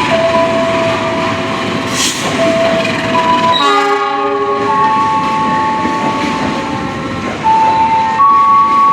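Train horn sounding one blast of about a second partway through, over the steady noise of a train running through the station. A simple tune of held single electronic notes steps up and down in pitch throughout, with a sharp clack about two seconds in.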